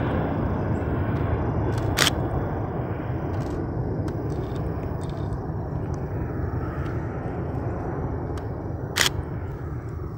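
Boeing 767-300F freighter's twin turbofan engines at climb power: a broad rumble that slowly fades as the jet climbs away. Two sharp clicks come through it, about two seconds in and again near the end.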